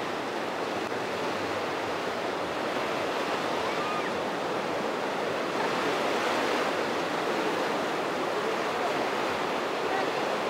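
Ocean surf breaking on a sandy beach: a steady rushing wash of waves that swells a little past the middle.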